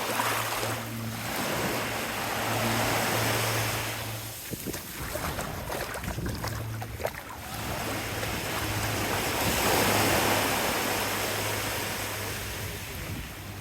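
Small waves washing up on a sandy beach. The wash swells about a second in and again around nine seconds in, over a faint, low, steady hum.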